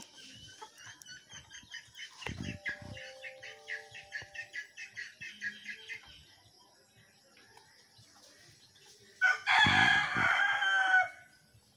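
A rooster crows once near the end, about two seconds long and the loudest sound. Before it, for several seconds, chickens give a quick, evenly repeated run of calls, about five a second.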